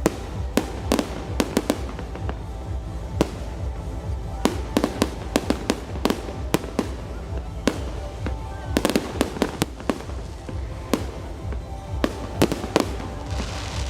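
Fireworks display: many sharp, irregular bangs of bursting shells, some in quick clusters, over music playing in the background.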